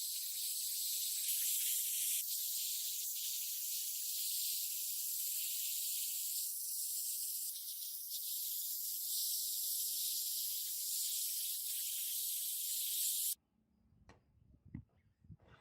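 Steady high-pitched spraying hiss, as from a cleaning spray or pressure-washer nozzle, that cuts off suddenly near the end, leaving a few faint knocks.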